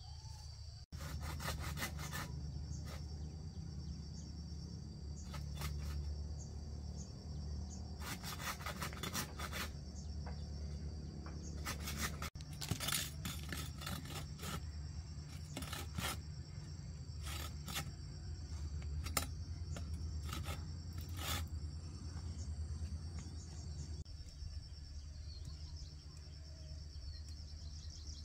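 Insects chirring steadily with a high, even tone over a low rumble, with several bouts of rapid scraping or rasping strokes.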